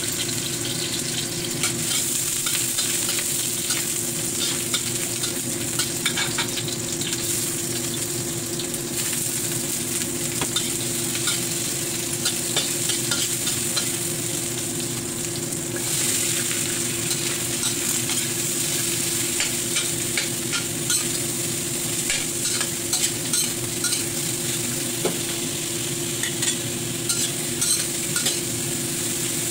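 Stir-frying in a stainless steel wok: shrimp, ginger and green onion, and later strips of tou chai and carrot, sizzle steadily while a metal spatula scrapes and taps against the pan. The sizzle gets louder from about halfway through.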